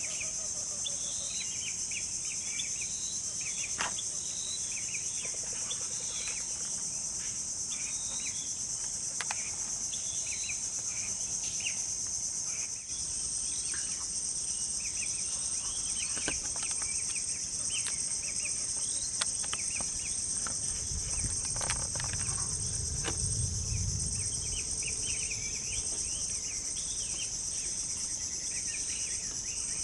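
Steady, dense chorus of insects, with many short high chirps over it throughout. A low rumble comes in about two-thirds of the way through and lasts a few seconds.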